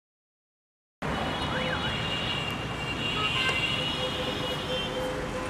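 About a second of silence, then the steady noise of city street traffic on a busy road.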